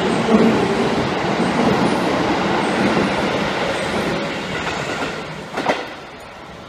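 Electric commuter train running past a station platform: steady wheel and rail noise that slowly fades as the last cars go by, with a sharp knock near the end before it drops away.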